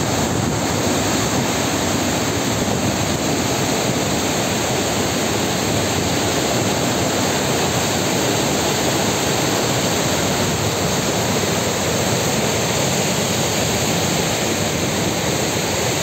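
A river in flood: fast, turbulent, muddy floodwater rushing in a loud, steady, unbroken roar.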